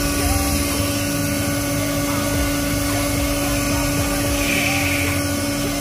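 Aldo snail-shell centrifugal blower running steadily on its freshly rewound non-capacitor motor: a strong, even rush of air over a constant motor hum. The airflow is strong, a sign that the rewound motor is working properly.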